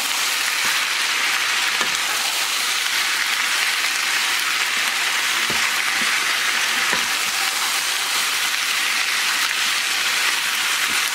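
Raw chicken pieces sizzling steadily in hot oil in a non-stick frying pan while being stirred with a wooden spatula, with a few soft knocks of the spatula against the pan.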